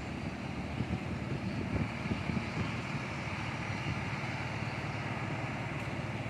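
Express coach's diesel engine running as the coach turns and pulls away, a steady low engine sound.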